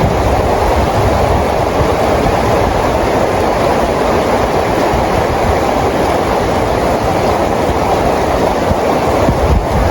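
Heavy rain falling steadily, a dense, even rushing noise with no letup.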